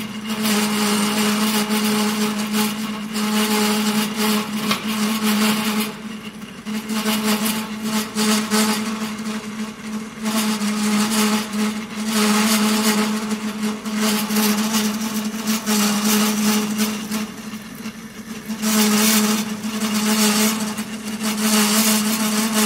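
Centre lathe running with a steady motor and gear hum while a wide parting tool is hand-fed into the turning workpiece to cut a square groove, at the reduced spindle speed used to avoid chatter. The cutting noise comes in stretches of a few seconds with brief lulls between feeds.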